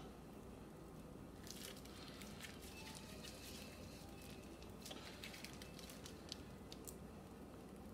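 Faint crinkling of a plastic zip-top bag squeezed by hand to pipe deviled-egg yolk filling. It comes as small crackles in two spells, about a second and a half in and again around five to seven seconds in, over a low steady hum.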